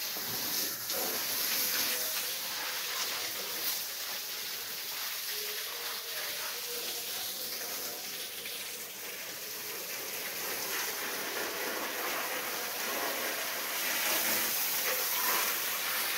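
Water from a hose spraying against a tractor and splashing onto the wet ground, a steady hiss.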